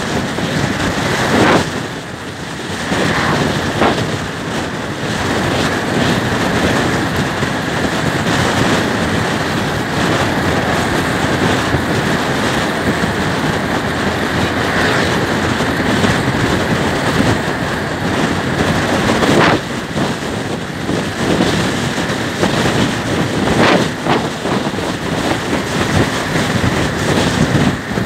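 Wind rushing over the microphone of a rider on a moving Suzuki scooter, mixed with the scooter's running engine and road noise. It stays steady, with a few brief louder gusts.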